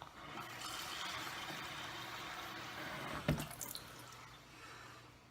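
Water running into a measuring cup as it is filled toward one cup, stopping a little after three seconds in with a sharp knock.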